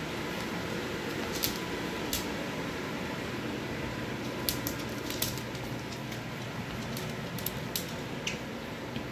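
A small dog's claws clicking lightly and irregularly on a wooden floor over a steady background hum.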